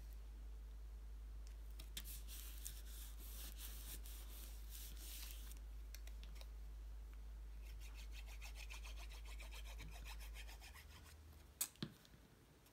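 Hands rubbing and smoothing cardstock paper pieces, pressing a glued panel flat. There are two stretches of faint, dry, scratchy rubbing, then two quick sharp taps near the end.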